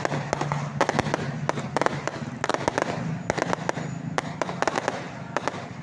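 Fireworks going off in rapid, irregular clusters of sharp crackling pops over a steady low hum. The pops stop shortly before the end.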